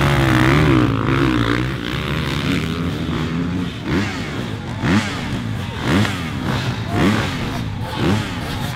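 Several dirt bike engines revving together off a start line, then accelerating away, the engine pitch rising in repeated sweeps about once a second as they shift up.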